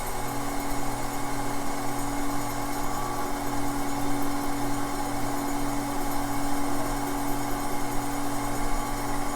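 Faceting machine running with a steady motor hum, its spinning lap grinding a gemstone's table facet by hand.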